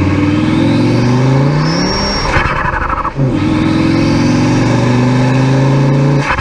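Tuned 300 hp Volvo S60 2.3 T5 turbocharged five-cylinder pulling hard, heard through its air intake, with intake and turbo noise rising with the revs. Its turbo flutters when the throttle closes about two seconds in. A gear change follows, then a second rising pull and another flutter near the end.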